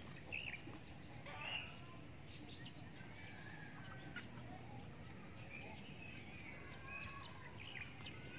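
Faint chirps and short calls from birds, with chickens clucking among them.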